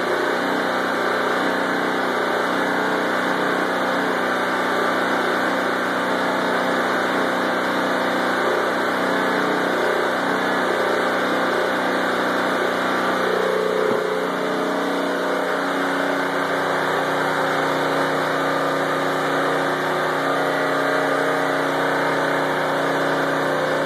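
Predator 6 hp, 173 cc vertical-shaft engine of a homemade lawnmower-engine generator running steadily under load.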